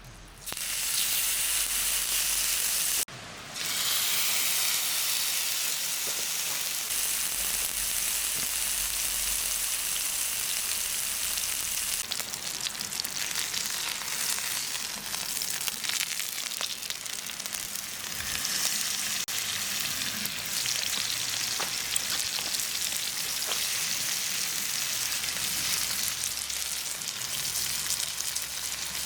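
Meat sizzling as it fries, a steady crackling hiss that briefly drops out about three seconds in.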